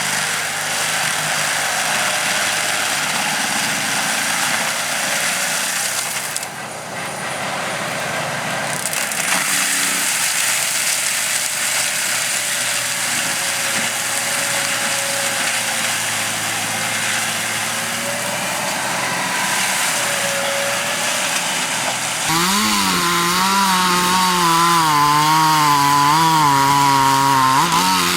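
Chainsaw running and cutting wood. About 22 seconds in, a louder chainsaw takes over, its engine note wavering up and down in pitch as it cuts.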